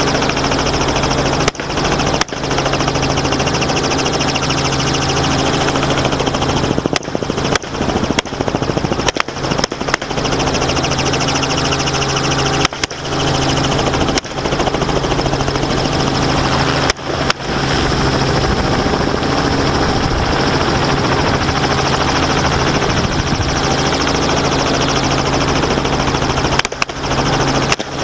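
Helicopter engine and rotor running loud and steady, with wind rushing past the open door, while semi-automatic rifles are fired repeatedly from the door at running feral pigs.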